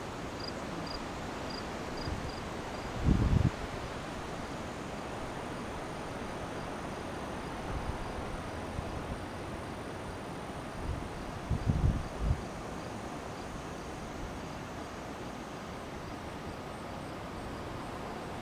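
Steady outdoor wind noise under a stormy sky, with faint insect chirping during the first couple of seconds. Two short low thumps hit the microphone, about three seconds in and again at about twelve seconds.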